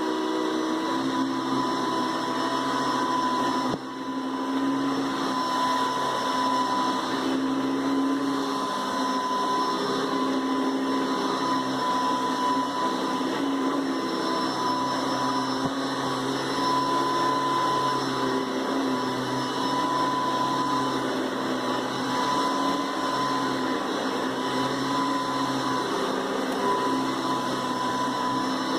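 Hoover Decade 800 upright vacuum cleaner running steadily: motor and fan noise with a steady high whine on top. The level dips briefly about four seconds in.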